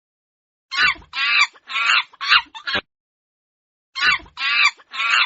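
Chicken calling: a run of five or six short clucks lasting about two seconds, repeated the same way after a pause of about a second.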